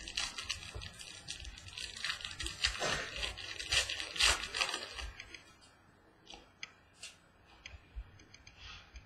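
Trading-card pack wrapper being torn open and crinkled by hand: a dense run of tearing and crackling for about five seconds, then quieter with a few faint ticks as the cards are handled.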